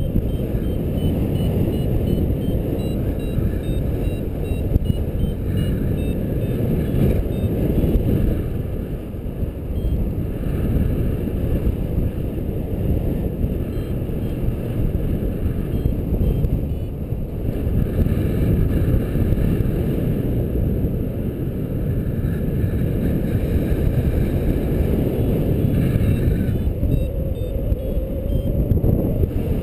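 Airflow in paragliding flight buffeting the microphone, a steady deep rumble. Over it a flight variometer gives faint, short, repeated high beeps.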